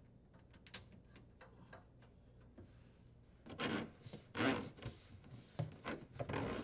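A corrugated plastic dishwasher drain hose rubbing and scraping against the edge of a hole in a wooden cabinet wall as it is pushed through, in several short bursts from about three and a half seconds in. A few light clicks come earlier.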